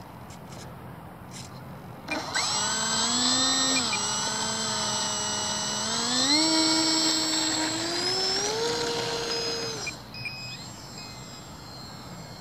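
Electric motor and propeller of an RC model plane, an H-King Cessna TTX, throttled up for takeoff. The whine starts about two seconds in, climbs in pitch in steps and drops away about ten seconds in.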